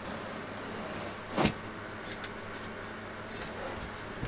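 Utility knife cutting through thick mattress foam, a low steady scraping with one short, louder noise about a second and a half in.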